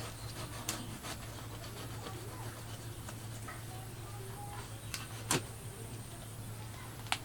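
Steady low hum with a few sharp clicks or taps, the loudest about five seconds in, and faint short chirps.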